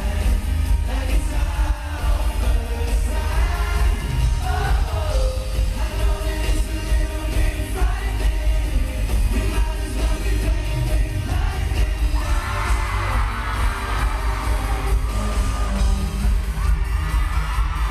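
Live pop music heard from inside an arena crowd: a loud, bass-heavy band track with the group singing over it. Fans scream along, most strongly in the last few seconds.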